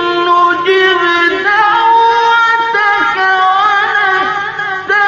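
A man chanting Quran recitation in a drawn-out melodic style, holding long ornamented notes whose pitch bends and wavers. The voice drops away briefly just before the end.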